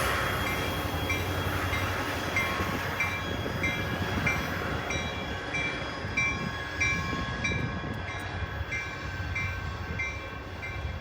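A continuous-welded-rail train rolling past with a steady rumble of wheels on track. A short high-pitched ringing tone repeats about twice a second throughout.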